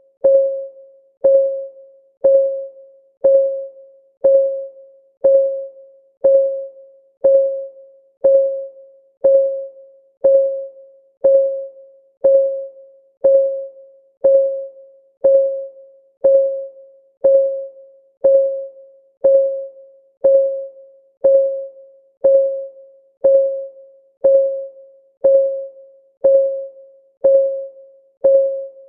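Clock-ticking sound effect for a countdown timer: one evenly spaced tick a second, each a short pitched knock that dies away quickly.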